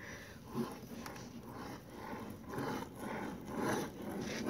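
RipStick caster board's wheels rolling on a concrete path as the rider wiggles it toward the camera: a faint, uneven rolling noise that swells about twice a second and grows a little louder as it nears.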